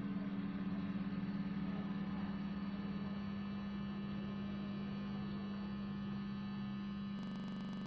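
Distorted electric guitar holding a single note that rings on steadily with a humming, buzzy sustain, changing character just before it cuts off at the end.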